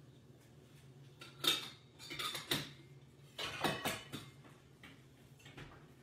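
Thin samosa pastry sheets being peeled apart by hand on a stainless-steel counter: papery rustling and crackling in three short bursts, then a few faint ticks. The sheets are lean, low in fat, so they separate slowly.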